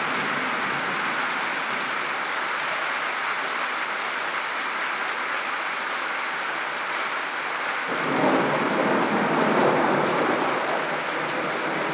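Steady heavy rain of a severe thunderstorm, with a roll of thunder about eight seconds in that swells for a couple of seconds and fades.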